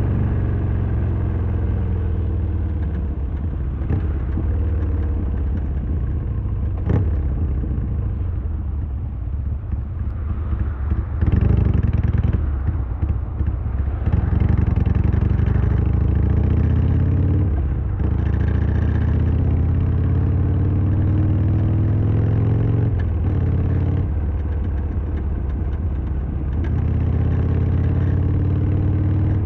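Harley-Davidson Sportster XL1200R's air-cooled V-twin engine under way, its revs climbing and then dropping sharply at each of three gear changes, with a loose clattering rattle that the owner suspects comes from the kickstand.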